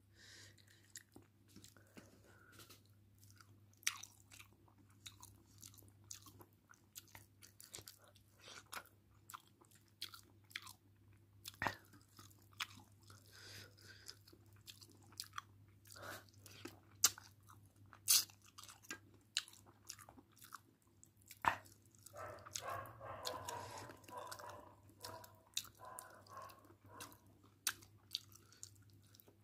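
Hand kneading and mixing rice into meat curry on a steel plate: irregular wet squishes and sharp clicks, busier about two-thirds of the way in, over a steady low hum.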